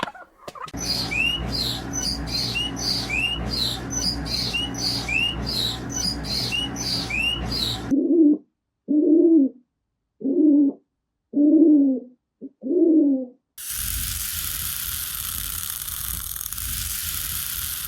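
A bird repeating a short upward-sweeping whistle about twice a second over background noise, then, after a cut, five low hooting coos spaced about a second apart, then steady noise with no calls.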